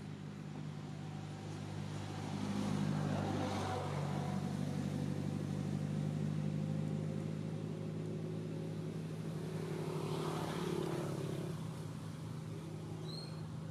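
A motor vehicle engine running with a steady low hum, swelling louder about two seconds in and again around ten seconds.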